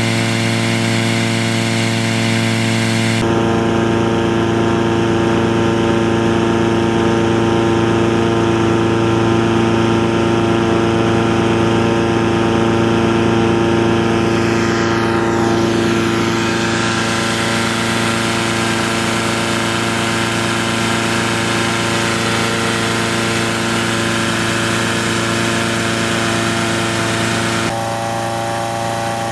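Petrol-engined balloon inflator fan running steadily at speed, blowing cold air into a hot-air balloon envelope during cold inflation. The engine note changes abruptly about three seconds in and again near the end.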